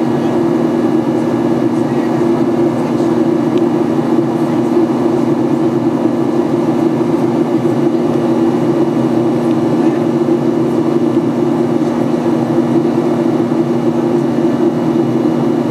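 Steady cabin drone of a Boeing 737-800 in the climb after takeoff: engine and airflow noise with a strong, even low hum and no change in pitch.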